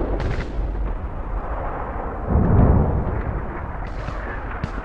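Low rumbling booms like distant artillery fire, swelling about two seconds in.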